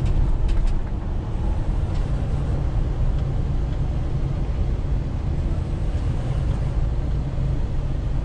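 Diesel engine and road noise heard from inside a semi-truck's cab while driving: a steady low drone. A few light clicks come in the first second.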